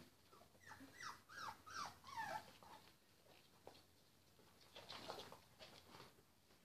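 Three-week-old puppies whimpering: a quick run of short, high squeaks that each fall in pitch, in the first two and a half seconds, then only faint scattered sounds.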